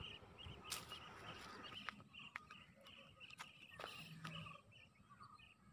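Near-silent outdoor quiet with a faint animal call: a short chirp repeated steadily about three times a second, and a few faint clicks.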